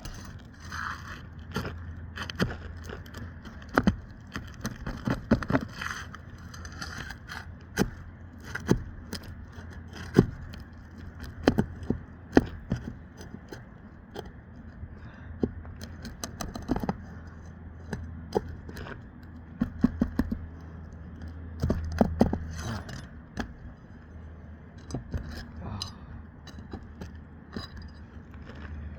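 Irregular metallic clicks and scrapes of hand tools working roofing nails loose from 3-tab asphalt shingles, with a few sharper, louder clicks scattered through.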